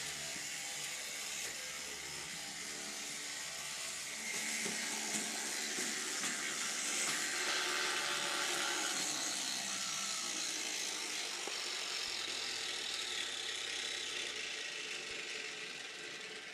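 H0-scale model trams running on the layout: the small electric drive motors whir and the wheels rattle over the track. It gets louder about four seconds in and fades off near the end.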